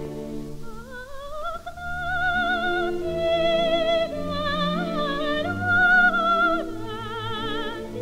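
Coloratura soprano with orchestra on a 1934 78 rpm record. About half a second in, the voice enters over the orchestra with an upward run, then sings held high notes with wide vibrato and ends in a quick trill.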